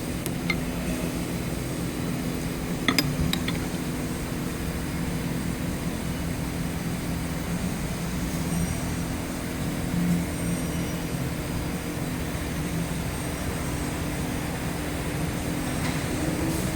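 Metal tools clinking in a steel toolbox drawer: a light clink about half a second in and a quick cluster of clinks around three seconds in, over a steady low machine hum.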